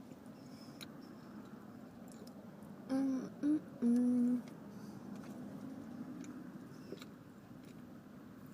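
A woman's voice giving a few short closed-mouth hums between about three and four seconds in, the last one longer and level in pitch, over faint room noise.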